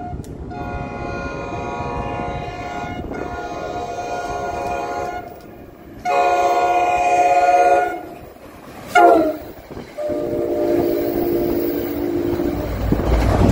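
Commuter train's air horn sounding long, long, short, long as the train approaches and passes at speed. The short blast slides down in pitch and the final long blast is lower as the train goes by, with wheel and rail rumble building underneath.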